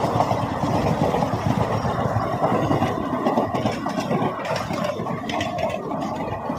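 Indian Railways train running with a steady, loud rumble and a few metallic clicks partway through; no horn sounds.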